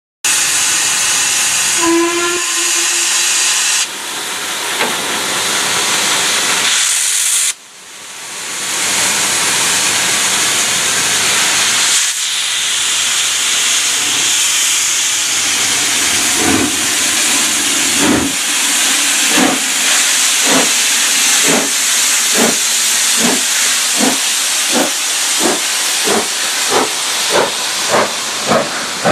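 LMS Stanier 'Black 5' 4-6-0 steam locomotive No. 45407 starting away with its train, cylinder drain cocks open and hissing loudly, with a short low whistle about two seconds in. From about halfway through, its two-cylinder exhaust beats come in, speeding up from about one a second to about two a second as it gathers pace.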